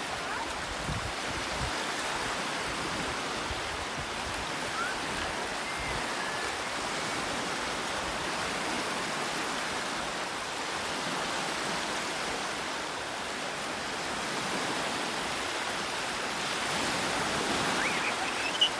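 Small freshwater lake waves breaking and washing over the shallows at the shoreline, a steady rushing hiss that grows a little louder near the end.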